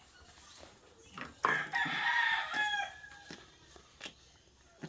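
A chicken gives one loud, drawn-out call, about a second and a half in and lasting over a second, with a few faint knocks around it.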